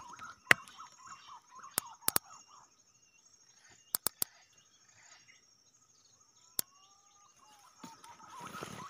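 Birds chirping over a steady high insect buzz, broken by several sharp clicks: the loudest about half a second in, two near two seconds, three near four seconds and one more later. The chirping thins out in the middle and picks up again near the end.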